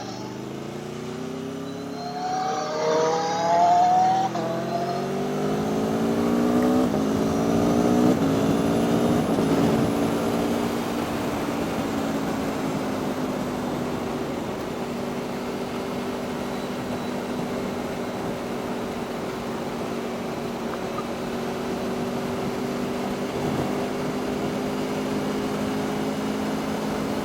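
Aprilia Tuono V4 1100 RR's V4 engine accelerating through several upshifts, its pitch rising and dropping back at each gear change. It then settles to a steady cruise for the rest of the time.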